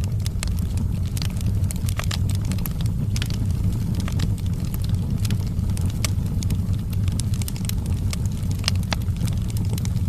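Wood fire crackling in a fireplace: many sharp, irregular pops and snaps over a steady low rumble of the flames.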